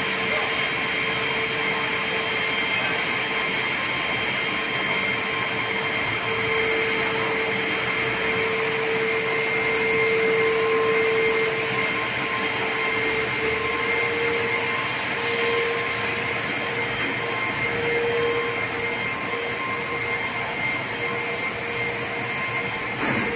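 Diamond wire of a CNC single-wire stone saw running over its pulley and cutting through a stone block under a water spray: a steady machine hiss with a held whine that swells and fades slightly.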